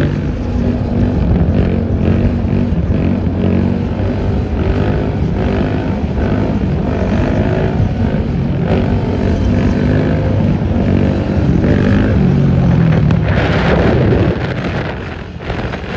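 Yamaha sport quad's engine running at speed as it is held in a wheelie, its pitch rising and falling with the throttle, over steady road and traffic noise. A louder rush of noise comes in near the end.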